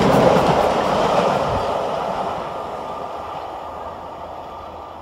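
LMS Stainer Class 5 4-6-0 steam locomotive passing close by under steam and drawing away. It is loudest in the first second or so, then fades steadily.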